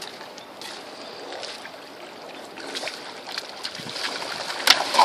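Water and wind noise with faint scattered clicks, and a sudden sharp sound near the end.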